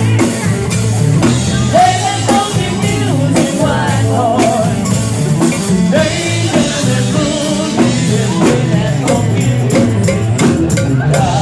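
Rock song with a singing voice, guitar and drum kit over a steady bass line, the drum hits coming closer together near the end.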